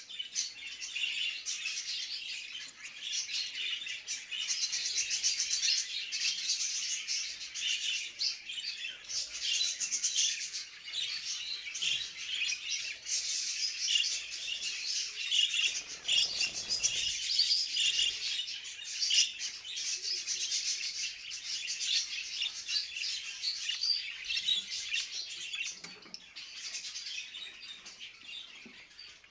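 A group of budgerigars chattering and warbling without pause: a dense stream of overlapping high chirps, the breeding-season chatter of paired budgies.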